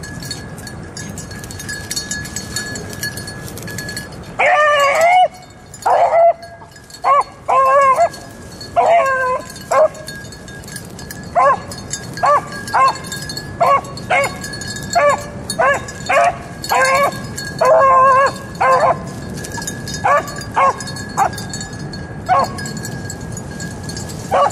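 Beagles giving voice, typical of hounds trailing a rabbit's scent. After a few quiet seconds come several drawn-out bays, then a string of short single barks about one a second that stop near the end.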